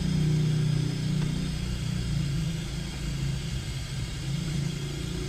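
Motorcycle engine running steadily with the bike on its center stand, turning the rear wheel and drive chain slowly, while an aerosol of chain lubricant hisses onto the chain.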